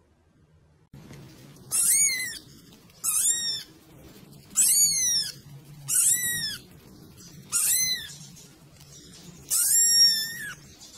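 Silver tabby kitten meowing six times, high-pitched calls that each rise and fall in pitch, about a second and a half apart, the last one drawn out longer.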